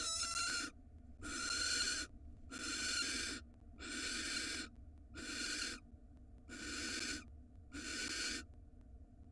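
Barn owl giving a string of harsh, rasping hiss calls, about one a second, each lasting most of a second, typical of the begging or food call in a nest box.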